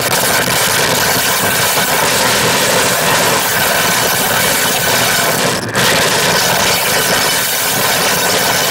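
Live harsh noise electronics: a loud, dense wall of distorted electronic noise, steady throughout, with a brief break about two-thirds of the way through.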